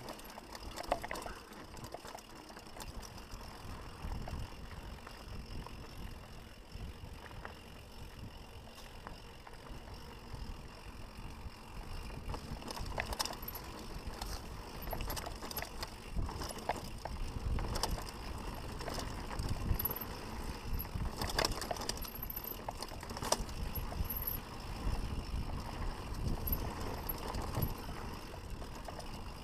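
Mountain bike descending a dirt singletrack: a continuous rumble of tyres on dirt and wind, with frequent sharp clacks and rattles of the bike over bumps. The rumble grows a little stronger about halfway through.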